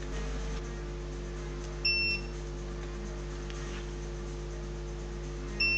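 Multimeter continuity buzzer beeping as the probes are put across a speaker to check for a short circuit: one short high beep about two seconds in, then a longer one starting near the end. A steady low electrical hum runs underneath.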